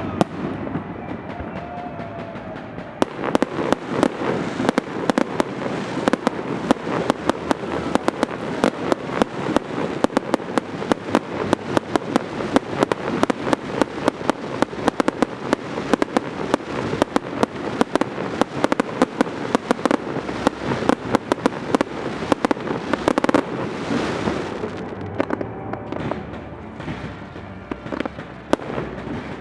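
Aerial fireworks display: a dense, rapid string of bangs and crackles, many per second, thickening about three seconds in and easing off near the end.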